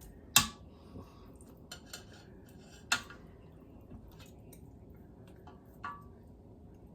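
Kitchenware clattering: scattered sharp clinks and knocks of utensils against dishes. The loudest knock comes about half a second in and another near three seconds, with several lighter taps between.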